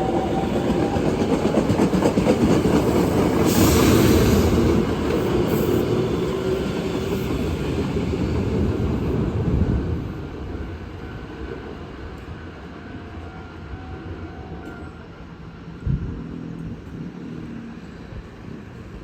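Hankyu electric train running along the tracks, a loud rumble with wheel clatter that swells around four seconds in, then drops away after about ten seconds and tails off.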